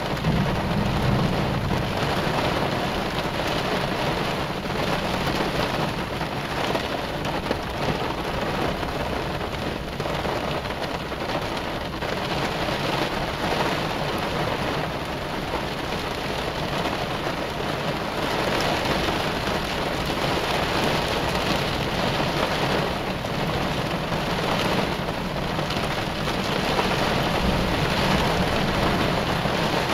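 Heavy rain beating steadily on a car, with low rumbles of thunder, one swelling about a second in and another near the end.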